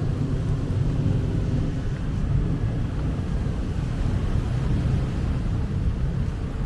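Steady low wind noise buffeting the microphone.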